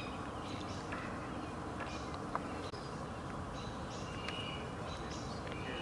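Wild birds calling: short, high chirps recurring every second or two over a faint steady background.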